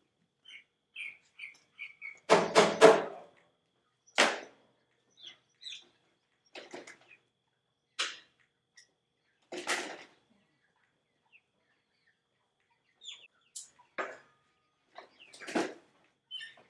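Intermittent bird chirps and calls, with a louder call about two and a half seconds in and several brief sharp sounds scattered through the rest.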